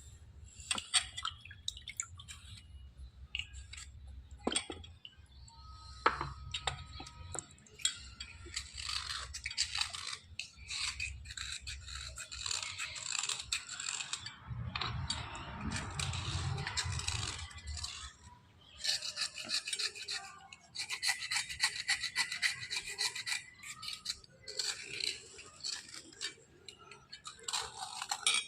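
Scrubbing a hard surface in rapid back-and-forth strokes, in runs with short pauses between them.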